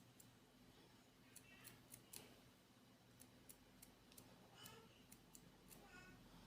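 Near silence with faint room hum and a few scattered small clicks and ticks.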